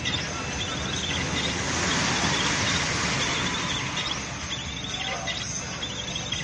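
Steady rushing of rain and floodwater, swelling a little a couple of seconds in, with a faint high-pitched sound repeating every half second or so.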